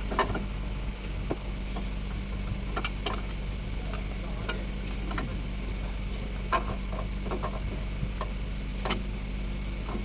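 Scattered, irregular sharp clicks and taps of metal tools being handled during engine-mount work, over a steady low hum.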